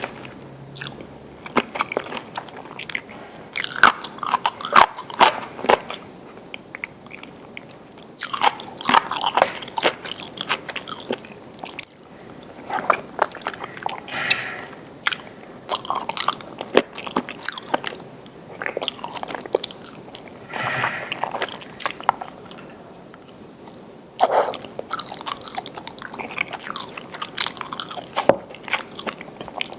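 A person biting and chewing food, with many irregular clicks and short bursts of mouth sound throughout.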